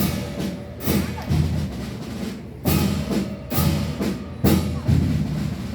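Chinese orchestra music driven by loud percussion: about eight heavy drum strikes with bright splashing hits on top, several coming in quick pairs.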